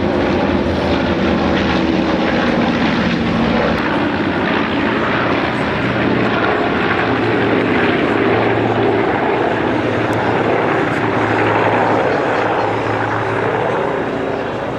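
Formation of WWII piston-engined warbirds, among them a twin-tailed B-25 Mitchell bomber and a P-51 Mustang, flying overhead: a steady, loud propeller drone that swells a little midway and begins to fade near the end.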